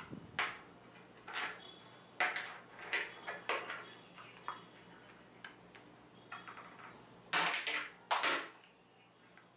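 Walnut shells being cracked and crushed on a hard desk top: scattered knocks and clicks, then two loud cracking crunches near the end.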